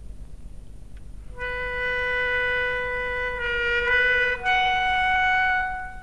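Film soundtrack music: a solo woodwind, clarinet-like, plays a long held note that starts about a second and a half in and wavers slightly. It then steps up to a higher held note that fades near the end.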